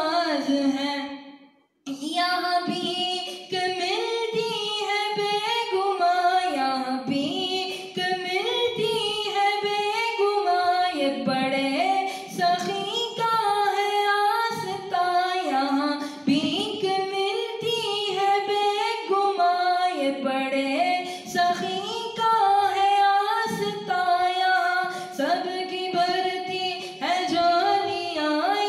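A young man's solo voice singing a manqabat, a Sufi devotional praise song, unaccompanied into a handheld microphone, with long ornamented notes that bend in pitch. The singing breaks off into silence for about half a second near the start, then resumes.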